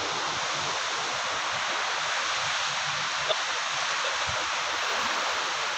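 Steady hiss of small sea waves washing onto a sandy beach.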